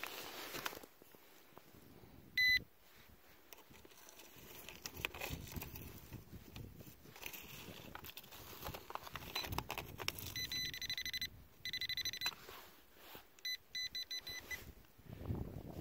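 Handheld metal-detecting pinpointer beeping as its tip is worked through loose stony soil. It gives one short beep about two and a half seconds in, two longer steady tones later on, and a quick run of short beeps near the end as it closes in on a buried metal target. Soil and stones scrape and rustle under the hand between the beeps.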